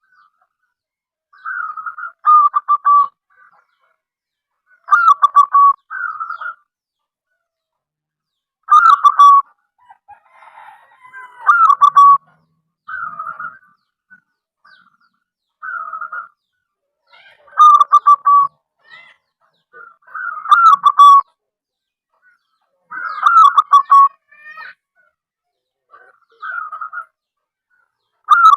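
Zebra dove (perkutut) cooing in its song: short phrases repeated every two to three seconds, each a brief opening note followed by a quick stuttering run of slightly lower coos.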